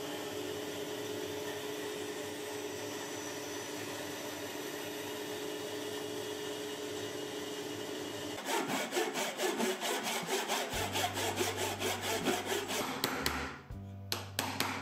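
Bandsaw running steadily as its blade cuts through a wooden block. About eight seconds in, rhythmic music with a plucked beat and a bass line takes over.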